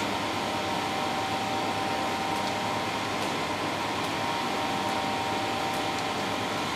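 Steady fan hum of a Stratasys Fortus 250 3D printer, with two steady tones in it, and a few faint ticks as a screwdriver tightens the screws on the extrusion head.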